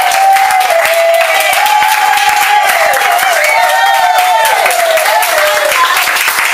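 Audience applauding steadily, with voices heard over the clapping.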